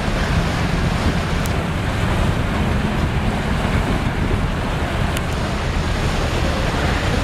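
Steady rush of churning floodwater as an overloaded storm sewer backs up and gushes out of a street drain, with wind buffeting the microphone.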